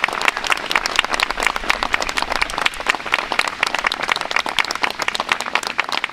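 Crowd of guests applauding: many hands clapping in a dense, steady patter.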